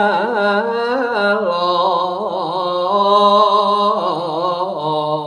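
A male dalang singing a Javanese suluk solo, drawing out long vowels in a melismatic line with a wavering pitch. The voice steps down to a lower held note about four seconds in.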